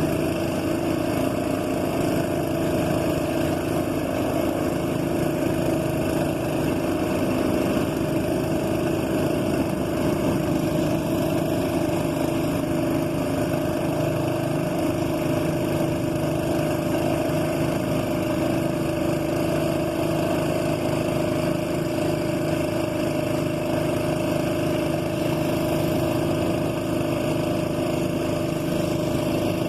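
Motorboat engine running steadily at an even speed, its pitch holding constant.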